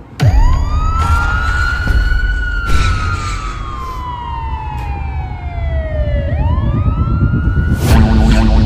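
Film teaser soundtrack: a deep boom opens a heavy low rumble, with a siren wailing over it, rising fast, then falling slowly for several seconds before rising again. A steady music beat comes in near the end.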